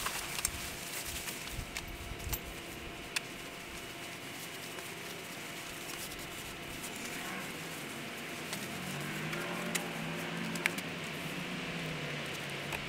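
Fabric shower-enclosure panels rustling and strap hardware clicking as the enclosure is pulled down and folded. Over the second half a low engine hum rises and falls, like a vehicle passing.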